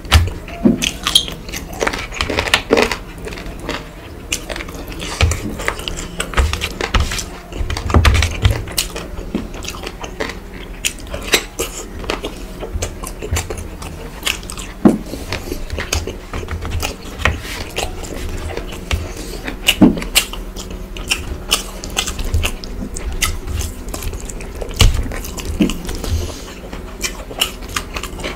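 Close-miked chewing and wet mouth sounds of rice and fish curry being eaten, a steady stream of small sharp clicks and smacks.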